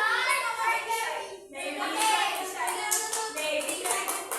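Young children singing together and clapping their hands, the claps coming thick and fast in the second half.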